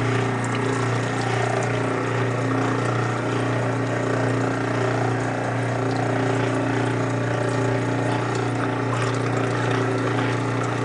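An old Kenmore wringer washing machine's drain pump running steadily, pumping out the dirty soapy wash water with a constant motor hum.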